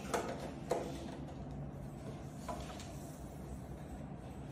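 Light clicks and knocks of hands handling the metal casing and drawer of a small coffee sample roaster: two sharper clicks in the first second, then two fainter ones midway, over a steady low hum.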